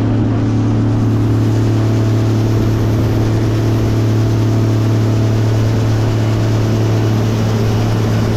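Combine harvester running steadily during corn harvest: an even, unchanging machine drone with a strong low hum.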